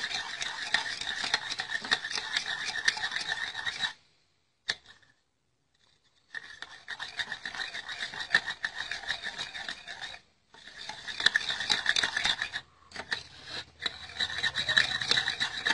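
Sugar, olive oil and lemon juice being stirred together into a scrub: a gritty, rasping scrape of sugar grains. It stops for about two seconds some four seconds in, and there are short breaks later.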